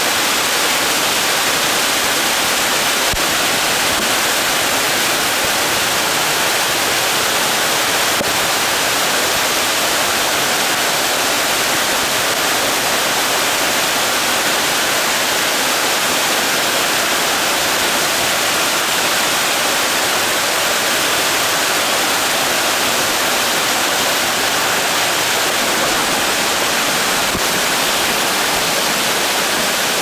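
Waterfall cascading down a steep rock face, close by: a loud, steady rush of falling water with no let-up.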